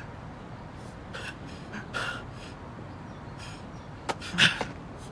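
People struggling: short breathy gasps and clothing rustles, with a louder sharp scuffle and clicks about four seconds in.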